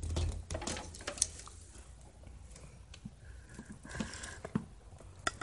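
Faint handling noise: scattered light clicks, taps and rustling as the phone camera is moved about.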